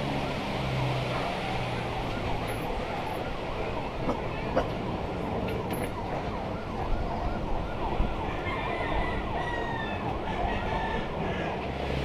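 Wooden rail trolley being shifted by hand on the track, giving a few sharp knocks over a dense, wavering outdoor background.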